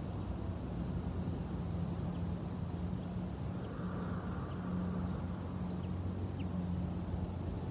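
Outdoor background: a steady low drone, like distant traffic or machinery, with a few faint bird chirps.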